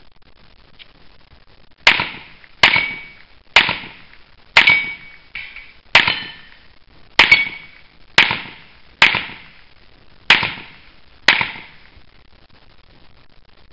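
A gun firing about ten single shots, roughly one a second, each a sharp crack with a short decaying tail; two come almost back to back about seven seconds in.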